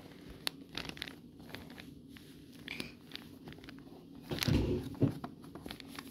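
Small hands tapping and sliding over a cardboard advent calendar: scattered light clicks and rustles, with a louder, longer rustle about four and a half seconds in.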